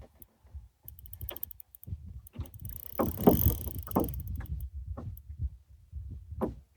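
Knocks, rustling and water sloshing around a small fishing boat while a large rainbow trout is played on a fly rod, with a louder stretch of sloshing about three seconds in.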